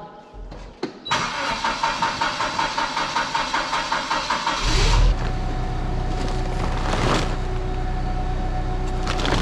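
An engine cranking on its starter for about four seconds, then catching and settling into a steady idle. A single clunk comes a couple of seconds after it starts.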